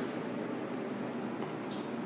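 Steady low background hum of room noise, with one faint light click near the end.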